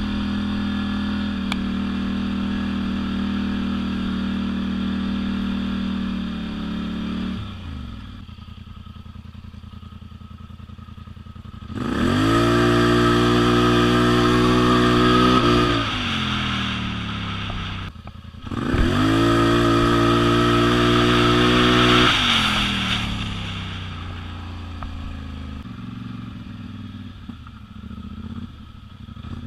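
Polaris Sportsman 1000 Highlifter ATV's V-twin engine running at steady throttle, dropping back to idle, then twice revving up and holding high for about four seconds each before easing back to idle.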